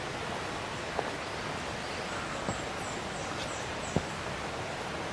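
Steady outdoor hiss and rustle on a forest trail, with three faint knocks about a second and a half apart.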